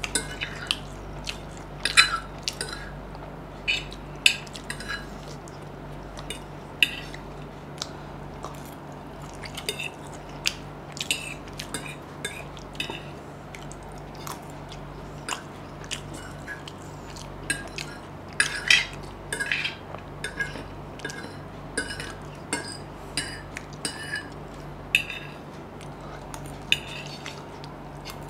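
A metal fork clicking and scraping on a plate as noodles are scooped up, with chewing and mouth sounds of eating between the strokes. The clicks are short and irregular, over a low steady hum.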